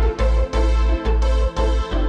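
Background music: an electronic beat with a deep bass pulse about twice a second under sustained chords.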